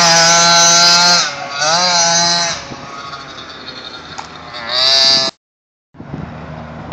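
Gas GoPed scooter's small two-stroke engine buzzing at high revs, easing off and revving up again several times, with a last rev near the end that cuts off abruptly. After a brief gap, wind noise on the microphone.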